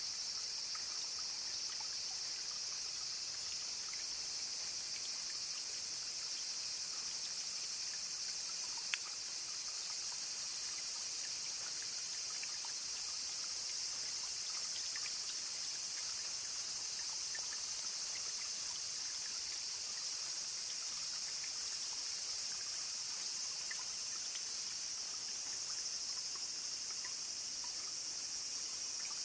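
A steady, high-pitched chorus of summer insects, with faint trickling water under it and scattered small ticks. There is one sharp click about nine seconds in.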